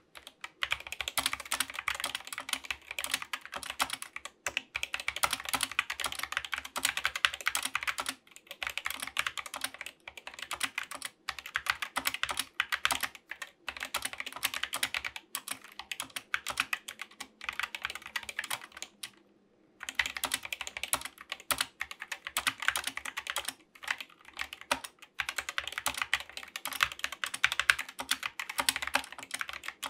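Fast, steady typing on a compact mechanical keyboard fitted with stock Gateron optical red switches: a continuous clatter of keystrokes. It stops briefly about eight seconds in and again for under a second about two-thirds of the way through.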